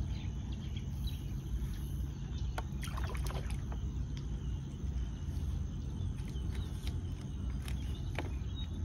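Shallow floodwater sloshing and splashing as a man wades and handles a bamboo-poled scoop net. There is a cluster of sharper splashes about three seconds in and two more near the end, over a steady low rumble.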